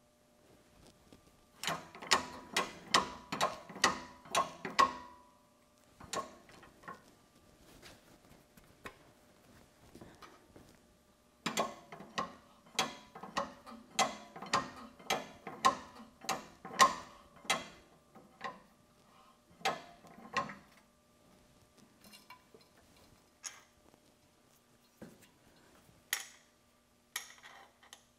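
Arbor press pressing quarter-inch pins into a 1/1000-inch press fit in pivot blocks: two runs of sharp metallic clicks, two or three a second, one run for each pin, then a few single clicks.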